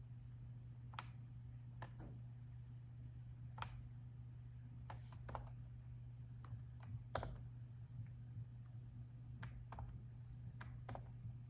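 Laptop keyboard keystrokes, sparse and irregular: about a dozen separate key taps with pauses between them rather than steady fast typing, over a steady low hum.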